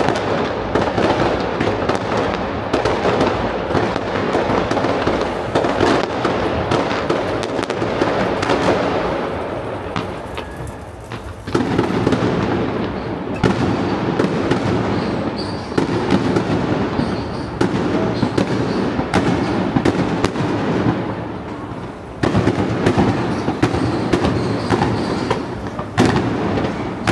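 Fireworks display: a dense, continuous barrage of bangs and crackling. It eases off about ten seconds in and again about twenty seconds in, picking up suddenly each time.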